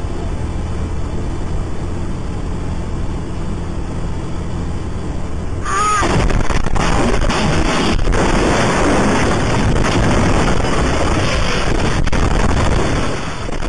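A school bus driving with a steady engine and road drone, then about six seconds in a sudden loud crash as an oncoming cement truck hits the bus. Several seconds of heavy crunching, rattling and banging follow.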